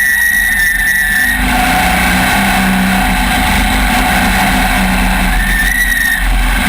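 Off-road race vehicle engine running steadily, with a high whine for the first second or so and again shortly before the end.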